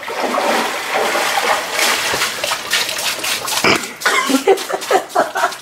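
Water splashing and streaming off a person climbing out of an ice-cold swimming pool, then short gasping, grunting breaths from the cold.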